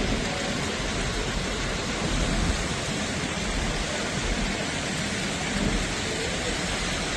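Heavy rain pouring steadily during a thunderstorm, with a low rumble underneath.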